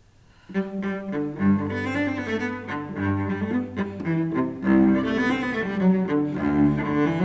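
Cello bowed, playing a melody of quickly changing notes with a strong low register, starting about half a second in after near silence.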